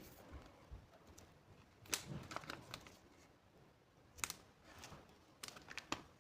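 Packaging being handled: faint rustling with a few sharp clicks, the loudest about two seconds in and more near the end.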